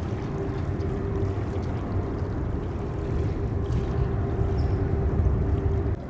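Distant airliner jet engines at takeoff power: a steady low rumble with a faint, even hum above it.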